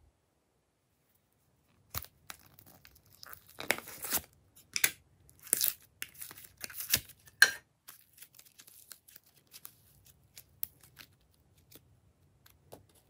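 Hands pulling apart and tearing a blue moulded slime add-in, with crisp crackling and tearing. It is loudest from about three and a half to seven and a half seconds in, then fades to lighter scattered crackles.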